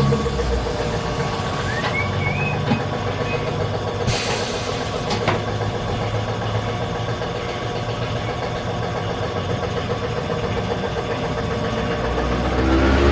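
An engine running steadily at idle, with a few faint clicks.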